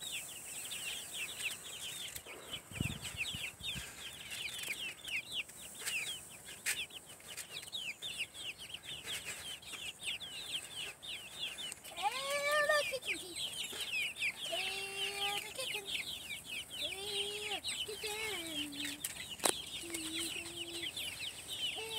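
A flock of young white Leghorn chickens peeping continuously, a dense stream of quick, high, down-sweeping cheeps. From about halfway through, a few lower, drawn-out gliding calls join in.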